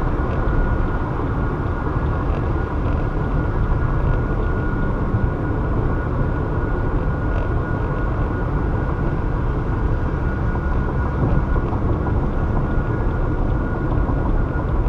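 Steady highway driving noise from a car at speed: a continuous low rumble of tyres and engine with a faint steady whine above it.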